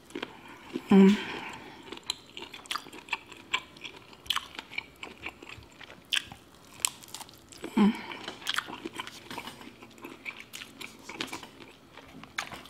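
Close-miked chewing and lip smacking of a person eating sauce-covered shrimp: a steady run of short clicks and smacks, with a brief hum about a second in and again near eight seconds.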